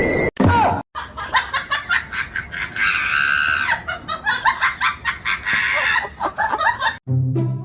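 People laughing in quick bursts, with a shrill, held cry about three seconds in; music with a steady pitch starts near the end.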